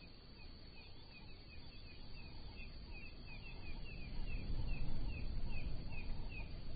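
A bird calling a fast series of short, falling chirps, about three a second, over a low outdoor rumble that grows louder about four seconds in.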